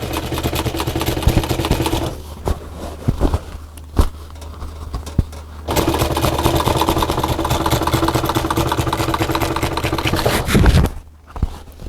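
Sewing machine stitching fabric at a fast, even needle rhythm in two runs. It stops for about three and a half seconds after about two seconds, with a few knocks in between, then runs again until near the end.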